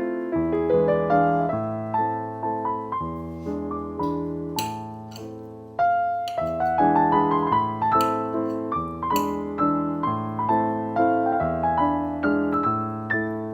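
Background piano music: a gentle melody of struck notes that ring and fade, with a short pause about six seconds in.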